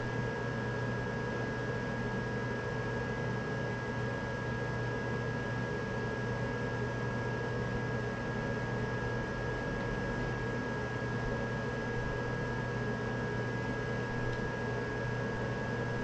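EcoFlow Delta Max 2000 portable power station's cooling fans running steadily under a fast charge of about 1400 W from a wall outlet, an even fan rush with a low hum and a steady high-pitched whine.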